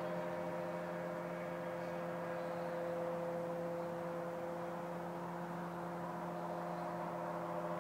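The Rotax 503 two-stroke twin engine of a Thruster TST microlight, flying overhead and droning at a steady pitch.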